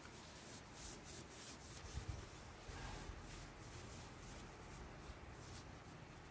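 A tissue rubbing over a hard plastic phone case: faint, repeated wiping strokes, most of them in the first half.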